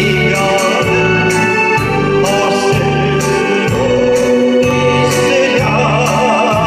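Live pop music: a band with a steady low beat about every second and sustained keyboard chords, and a voice singing a held, wavering melody over it.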